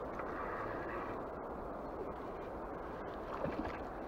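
Steady rushing noise of a flowing river, with a few faint clicks about three and a half seconds in.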